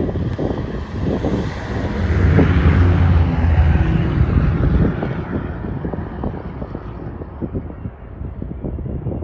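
Low engine rumble swelling from about two to five seconds in, then easing, under steady wind buffeting the microphone.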